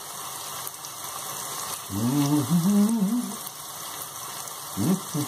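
A man humming a few bending notes, about two seconds in and briefly again near the end, over a steady hiss.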